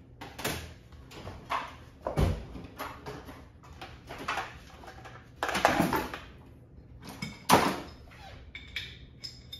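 Metal hand tools clinking and clattering on a workbench as they are rummaged through and moved about: a string of separate knocks and clanks, the loudest about two, five and a half, and seven and a half seconds in.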